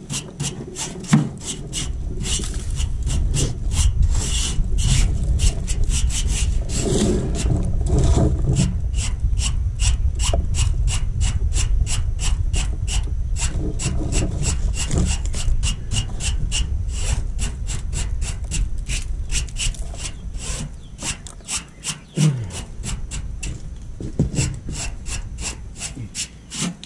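Small hand brush scrubbing caked lint and dirt off the fins of an Amana air-conditioner condenser coil, in quick scratchy strokes about four a second over a low rumble. The clogged coil is why the unit is not cooling.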